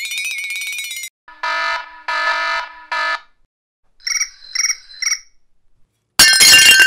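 A run of electronic cartoon sound effects: a held tone that stops about a second in, three buzzer blasts of about half a second each, three short high beeps, then a loud noisy burst near the end.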